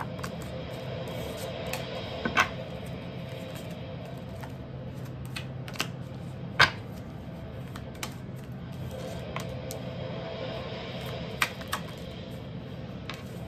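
Tarot cards being handled and laid down on a table: a few short sharp taps and clicks, the loudest about two and a half and six and a half seconds in, over soft background music.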